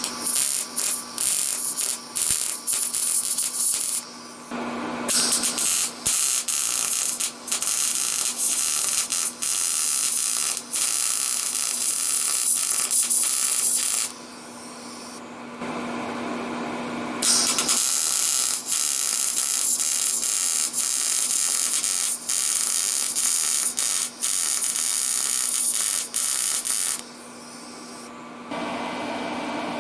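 PrimeWeld MIG 180 welding arc crackling and sizzling on thin 0.062-inch sheet in three runs of several seconds, stopping briefly between them, over a steady low hum.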